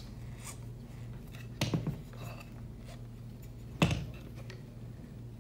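Hands turning the round side reels of a Scribit wall-drawing robot to wind its string, with light handling and rubbing noise on the device and one sharp click nearly four seconds in.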